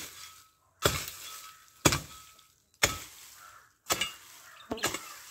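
Sharp blows of a hand tool striking into weedy undergrowth and ground, about one a second, each trailing off quickly; the last comes as a quick double strike.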